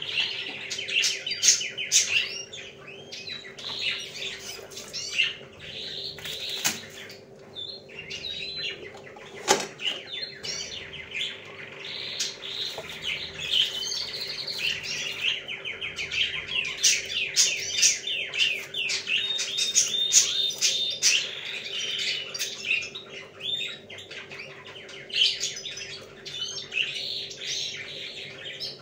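Many small birds chirping and twittering densely and without pause, over a faint steady hum.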